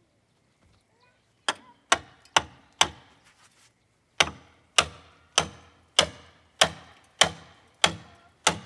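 Hammer blows against an incense cedar log, knocking back a protruding knot that stalled the sawmill's blade: four quick strikes, a short pause, then eight more at an even pace, each sharp with a brief ring.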